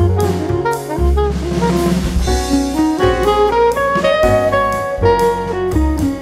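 Instrumental background music with a drum beat under a moving melody line.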